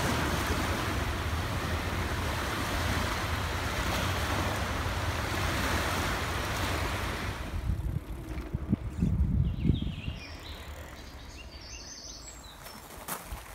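Small sea waves washing up onto a sandy beach and slipway, with wind on the microphone. About eight seconds in the surf gives way to a few low bumps and then a much quieter outdoor background.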